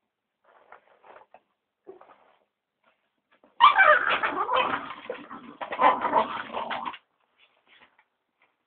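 A dog barking as it attacks a vacuum cleaner that is switched off: a few faint sounds in the first couple of seconds, then a loud burst lasting about three seconds from a little before halfway.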